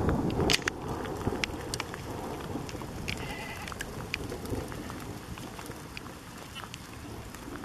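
A goat bleats once, short and high-pitched, about three seconds in, over scattered light clicks and outdoor wind noise that is loudest in the first second.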